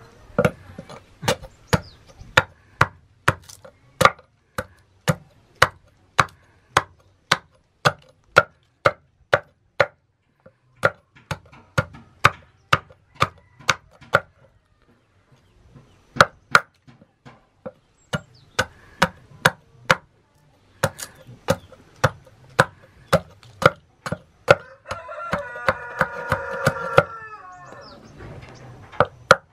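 Hand hammer striking steel on an anvil while forging a knife blade, sharp ringing blows at about two a second with a couple of brief pauses. Near the end a pitched, drawn-out tone sounds for about two seconds under the strikes.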